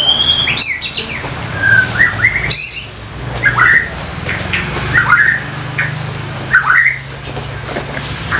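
Young white-rumped shama calling: short chirps and harsher squawk-like notes that sweep upward, one burst every second or two. A low steady hum runs underneath.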